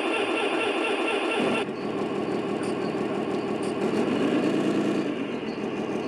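Radio-controlled scale truck's sound module playing a diesel engine through its small speaker: a start-up burst that settles, about a second and a half in, into a steady idle.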